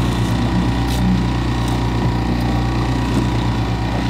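Small fishing boat's outboard motor running steadily while trolling, an even low hum, with a few faint light clicks over it.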